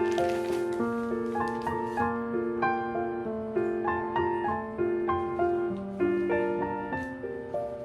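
Background piano music: a gentle melody of sustained notes over a slow bass line, with a few faint clicks or taps mixed in.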